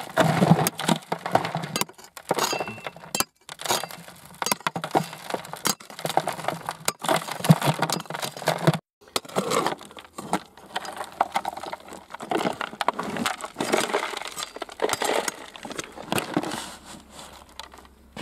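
Short-handled shovel chopping and scraping at hard, stony ground, with irregular strikes and loose rock and dirt clattering down. There is a brief pause about halfway through.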